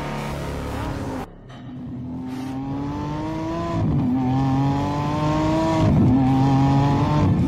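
Lamborghini Huracán Tecnica's 5.2-litre naturally aspirated V10 accelerating hard, its pitch climbing through the gears with quick upshifts about four and six seconds in, getting louder toward the end. About a second in, the sound cuts briefly before the run begins.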